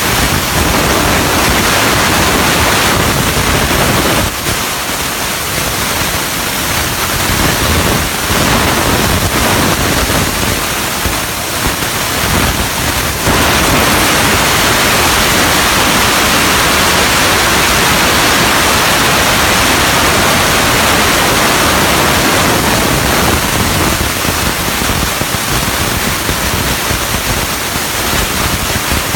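CNC plasma cutter's torch cutting steel plate: a loud, steady hiss of the plasma arc and compressed air. It turns brighter and louder about halfway through, then eases back.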